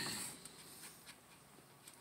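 A brief scrape of the chainsaw chain and the sharpener's metal parts being handled, fading within about half a second, then faint room tone. The sharpener's motor is not running.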